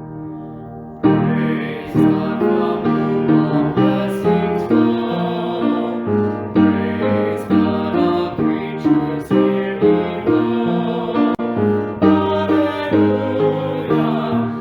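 Piano music: a held chord dies away, then a new phrase begins about a second in and carries on with a steady run of notes.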